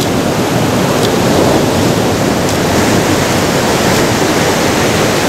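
Ocean surf breaking over rocks and washing up the sand: a loud, steady rush of waves.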